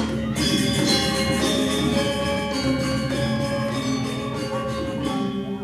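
Balinese gamelan accompanying a topeng keras masked dance: a dense ringing of bronze metallophones and gongs, which thins to a few sustained tones near the end.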